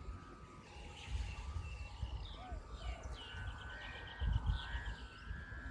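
The bow hummer (aek) of a Thai chula kite humming in strong wind, a steady high drone in two pitches. Wind rumbles on the microphone, hardest a little after four seconds in, and a bird chirps about three seconds in.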